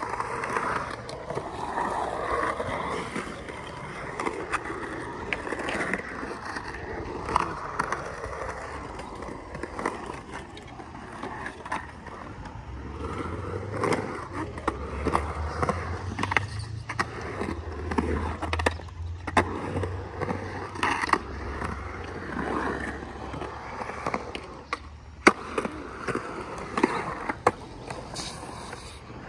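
Skateboard wheels rolling over a concrete skatepark bowl and transitions, with repeated sharp clacks of the board hitting the concrete and one especially loud clack near the end.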